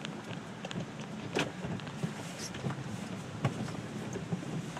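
Inside a car driving on a rain-soaked road: a steady rumble of engine and tyres on the wet road, with a few sharp clicks and knocks.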